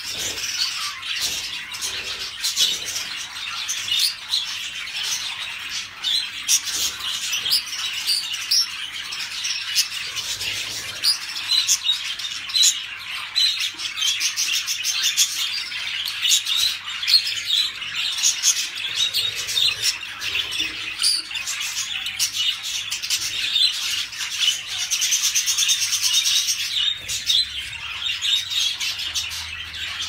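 Budgerigars in breeding condition warbling and chattering nonstop: a dense, unbroken stream of chirps, clicks and short squeaky notes.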